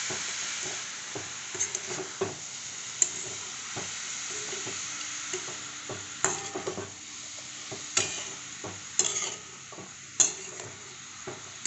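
Wild mushrooms frying in masala in a pan, sizzling steadily, while a spatula stirs and scrapes through them. Several sharp clinks of the spatula against the pan, and the sizzle grows quieter in the second half.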